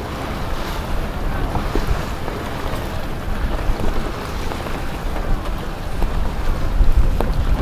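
Steady low rumble and hiss of wind buffeting the microphone.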